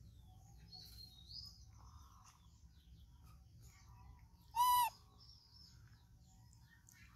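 A baby pig-tailed macaque gives a single short, high-pitched squeak about two-thirds of the way through, over faint bird chirps in the background.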